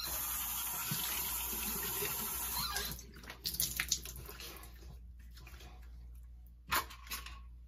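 Water running from a sink tap for about three seconds, then turned off, followed by a few light splashes and small knocks at the basin.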